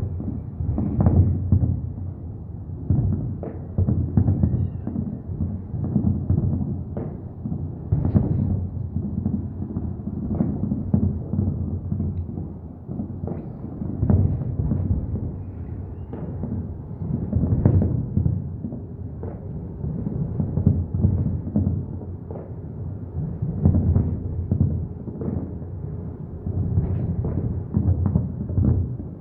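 Fireworks display: many shells bursting in quick succession, the booms running into one another in a continuous low rumble that swells and eases every few seconds.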